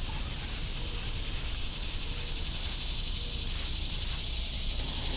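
Steady outdoor ambience: an even high hiss of insects over a low, fluctuating rumble, with a few faint short tones.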